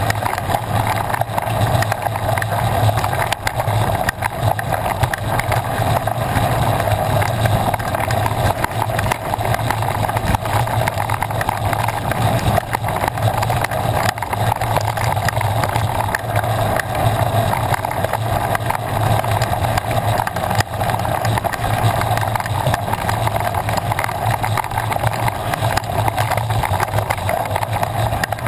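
Mountain bike riding fast over a rough dirt track: a steady rush of wind and tyre noise with constant small rattles and knocks from the bike and the ground.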